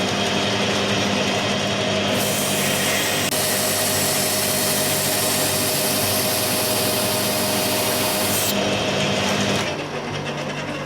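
Abrasive cloth rubbed against a steel drive shaft turning in a metal lathe: a steady rasping hiss over the lathe's running hum, taking the shaft down to fit. The rasping stops near the end and the lathe carries on running.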